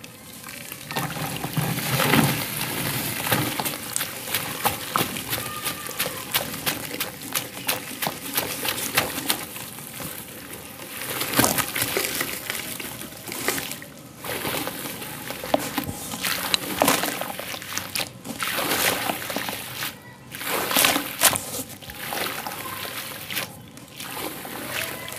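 Dry white sand poured into a tub of water, first from a cardboard box and then by the handful, falling onto the water in a steady rushing patter. The pours come in runs separated by short pauses.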